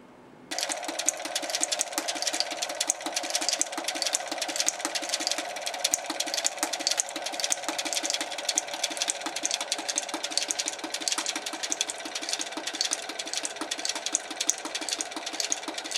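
A machine running with a fast, even knocking rhythm of several strokes a second, starting abruptly about half a second in.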